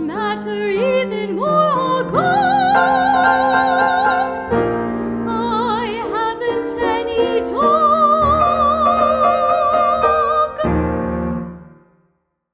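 Female classical singer with piano accompaniment singing the closing phrase of an art song, ending on a long held high note with vibrato. A final piano chord follows near the end and dies away.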